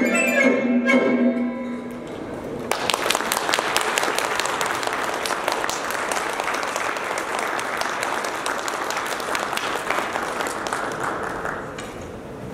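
A Chinese traditional instrument ensemble of plucked lutes and hammered dulcimer sounds its last held notes, then the audience applauds for about nine seconds, the clapping thinning out near the end.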